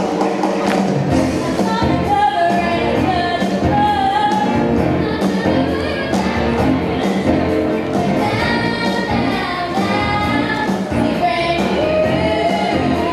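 A teenage girl's amplified voice singing a show tune over instrumental backing music.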